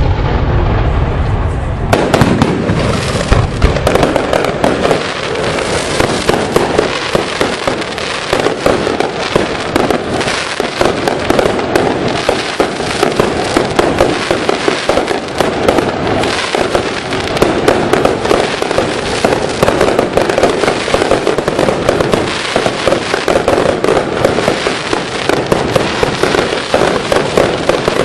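Fireworks display: a deep low boom in the first two seconds, then from about two seconds in a dense, continuous rattle of rapid bangs and crackling that keeps on without a break.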